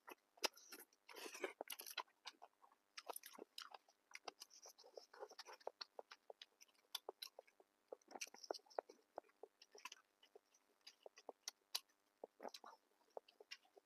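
A person chewing and biting crunchy food, with many short, irregular crunches and clicks.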